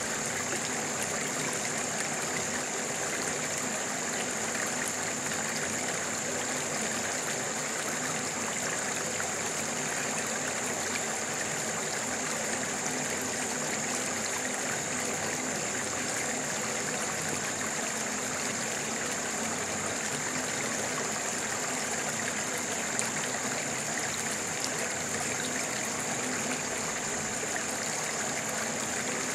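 Stream water flowing steadily, a continuous rushing, with a steady high-pitched tone running above it.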